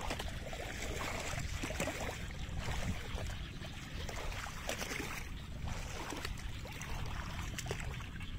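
Shallow floodwater sloshing and splashing around a gill net as it is handled, with small scattered clicks and a steady low wind rumble on the microphone.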